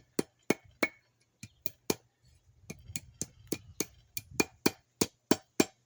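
Hand hammer striking hot steel on an anvil, drawing out the tip of a workpiece: about seventeen sharp, ringing blows at roughly three a second, in short runs with brief pauses.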